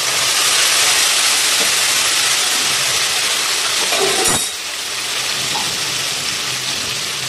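Ginger and red chilli paste sizzling loudly as it hits hot oil in a kadai with frying potatoes. About four seconds in there is a single sharp click, and the sizzle eases a little after it.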